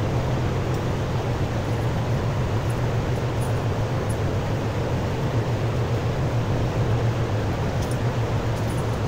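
Steady low mechanical hum with a noisy hiss over it, unchanging throughout, like a running fan or barn machinery.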